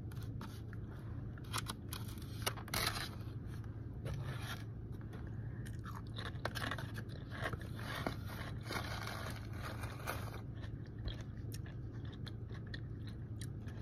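Crunching and chewing a chip close to the mouth: a run of irregular crisp crunches, over a steady low hum.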